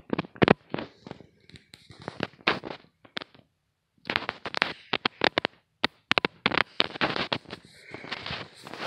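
A rapid, irregular series of sharp clicks and knocks with some crackle, sparser at first and then dense after a short pause about four seconds in.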